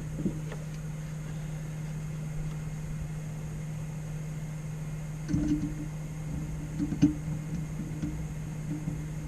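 Steady low mechanical hum, with a few light knocks and a sharp click about five and seven seconds in from screws and a monitor mount being handled.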